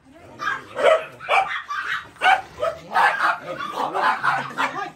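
Several house dogs barking in short, sharp, repeated barks, about two a second, mixed with higher yips.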